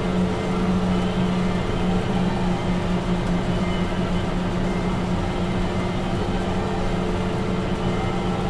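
Caterpillar D8T bulldozer's diesel engine running steadily under load, with a steady low drone and fainter higher tones.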